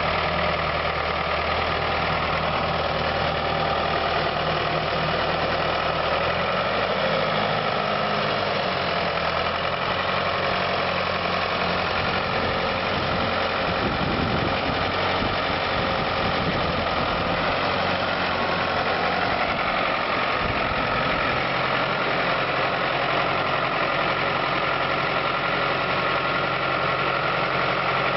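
County 754 four-wheel-drive tractor's diesel engine running steadily as the tractor is driven slowly, its note shifting a few times as engine speed changes.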